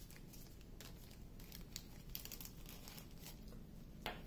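Faint crinkling of a small plastic bag of diamond painting drills being handled, with light scattered rustles and clicks and a sharper tap about four seconds in.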